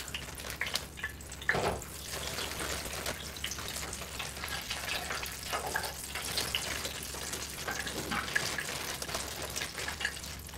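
Steady hiss of hot oil in an electric deep fryer as frozen crinkle-cut fries are poured into its wire basket, with a few louder bursts of plastic bag crinkling and fries dropping into the basket.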